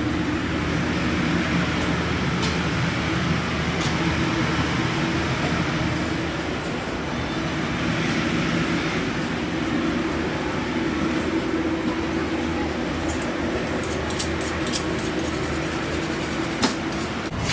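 Steady indoor din of a busy buffet restaurant: a low machine hum under faint indistinct voices, with a few sharp clinks near the end.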